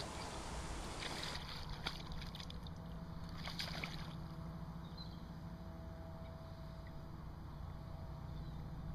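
Faint, steady low rumble of flowing river water.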